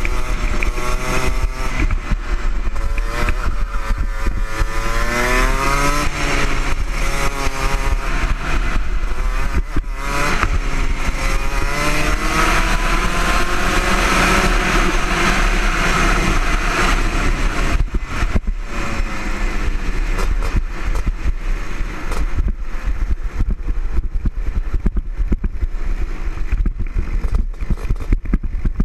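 Rotax Junior Max 125cc two-stroke kart engine running flat out, heard from the kart itself: its pitch climbs as the kart accelerates, dips briefly, climbs again, then winds steadily down over the last ten seconds as the kart slows. A constant low wind rumble on the microphone runs underneath.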